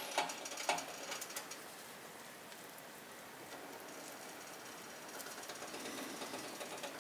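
Faint steady sizzle of eggs and potatoes frying in olive oil in a pan, with a few light clicks in the first second or so.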